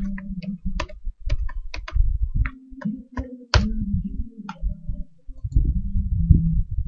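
Computer keyboard being typed on: a quick, uneven run of about a dozen keystrokes over a low steady hum. From about five seconds in the keys stop and a louder low rumble takes over.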